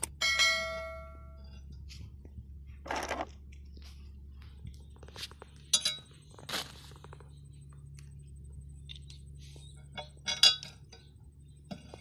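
Dishes and cutlery clinking and clattering during a meal. One ringing clink just after the start rings on for about a second, and short clatters follow several times.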